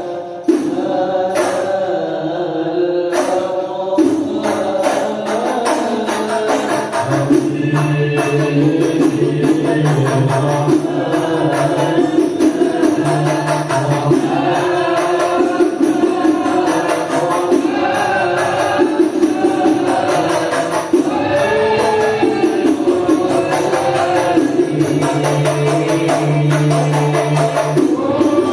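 Sholawat devotional song: voices singing a melody over a steady beat of hadrah frame drums with jingling tambourine strokes.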